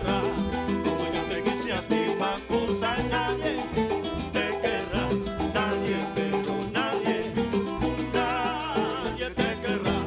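Cuban son band playing an instrumental passage with a steady salsa groove of bass, piano and percussion.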